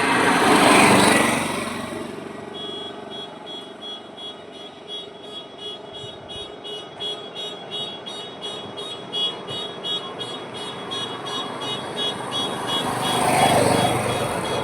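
Highway traffic: a vehicle passes loudly about a second in and another near the end. Between the two passes a high-pitched pulsing sound repeats about three times a second.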